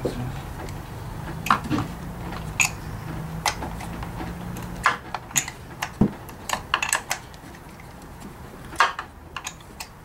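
Irregular sharp clicks and light knocks of hand tools and parts being handled among the ignition coils in a car's engine bay, a quick cluster of them about two-thirds of the way through. A low steady hum runs underneath and stops about five seconds in.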